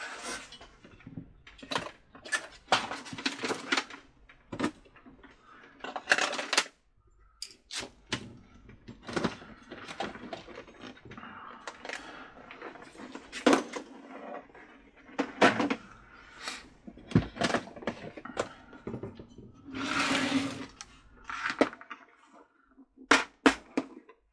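Small parts and containers being handled and rummaged through on a workbench: irregular clicks, knocks and rustling, with a longer rustle about twenty seconds in.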